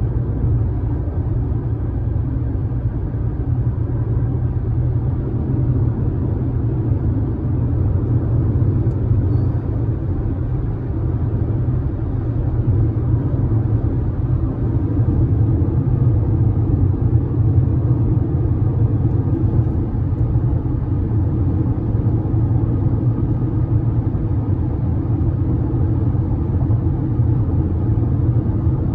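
Steady low rumble of a car's tyres and engine heard inside the cabin while cruising on a highway.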